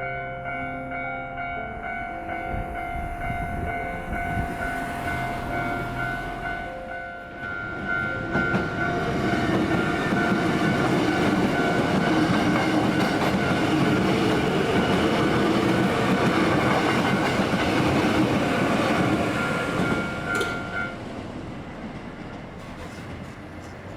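Japanese level-crossing warning bell ringing while a Hankyu electric train passes over the crossing. The train noise builds from about eight seconds in and fades after about twenty seconds, when the bell stops.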